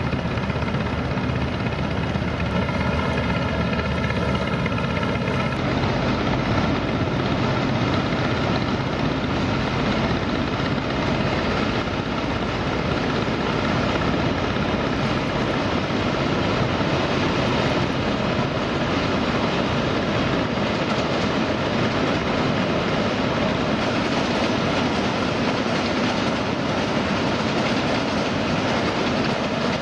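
General Motors MEG-11 diesel locomotive hauling a container train across a steel truss bridge: a steady pitched tone for the first five seconds or so, the engine's low drone, and the continuous rumble and clatter of the wagons rolling over the bridge.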